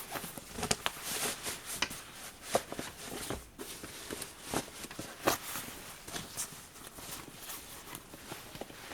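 Handling noise from a backpack being worked on by hand: irregular rustles of fabric with scattered light taps and clicks, the sharpest about half a second, two and a half seconds and five seconds in.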